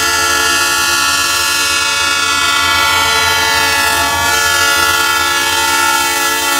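A Ferromex diesel locomotive's air horn blowing one long, steady chord of several notes as the train approaches a street crossing, warning traffic.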